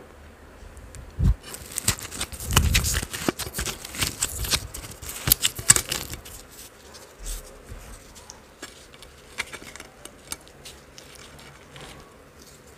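Fingers tearing a flaky layered paratha: a dense run of crackles and small tearing sounds for several seconds, with a couple of soft low thumps near the start, thinning to scattered soft crackles in the second half.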